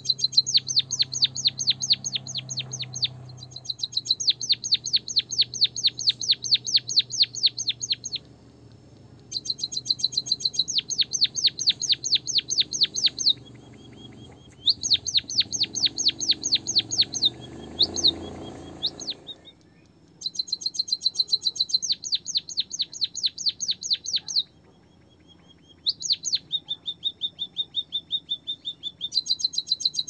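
Caged white-headed munia chirping in fast runs of sharp, high notes, about six or seven a second, in bouts of several seconds with short pauses between them; a thin steady high whistle fills some of the pauses. A low rumble swells underneath and cuts off about two-thirds of the way through.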